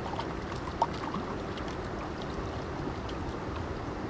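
Mountain creek rushing over rocks: a steady wash of flowing water, with one small sharp click a little under a second in.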